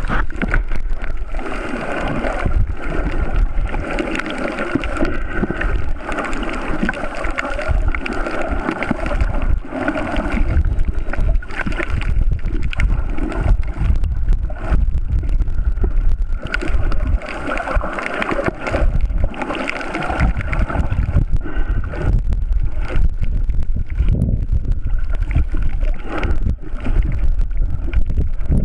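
Water sloshing and gurgling around a camera filmed underwater, a muffled rumble that swells and fades every few seconds.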